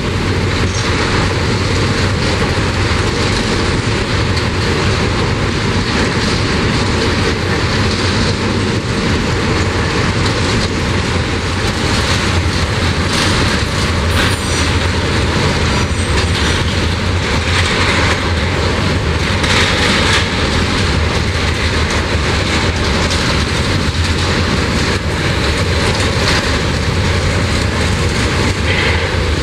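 Freight train of covered grain hopper wagons rolling past: steady, loud noise of steel wheels running on the rails.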